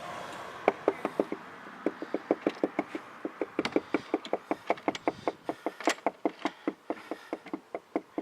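Hurried footsteps on a hard surface: a fast, even run of sharp knocks, about five or six a second, starting just under a second in.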